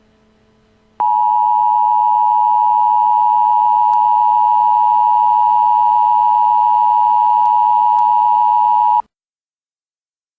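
Emergency Alert System attention signal: a loud, steady two-tone alarm. It starts abruptly about a second in, holds for about eight seconds, then cuts off suddenly, announcing that an emergency alert message follows.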